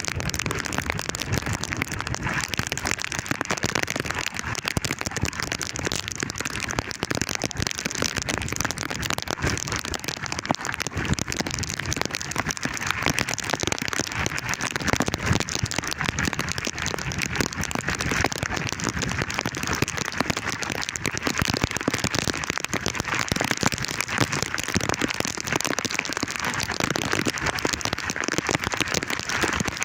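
Heavy rain falling, a dense, steady hiss of countless drops striking.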